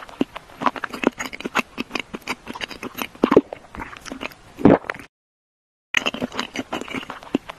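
Close-up eating sounds: a person biting and chewing crunchy food, in quick irregular crunches with a few louder bites. The sound cuts off completely for under a second after about five seconds, then the crunching chewing resumes.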